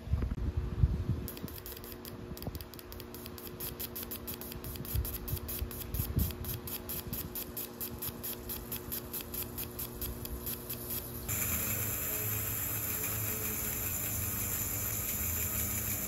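Fuel injector being pulsed open by tapping a wire on a car battery terminal, spitting carb cleaner through its nozzle in a rapid, even run of short sprays, about four or five a second. About eleven seconds in it is held open and sprays in a steady hiss. This is an injector being flushed clean.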